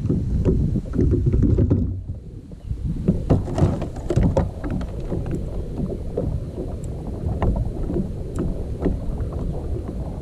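Wind rumbling in gusts on the camera microphone aboard a fishing kayak, with water sounds and scattered small clicks and knocks from the boat and tackle.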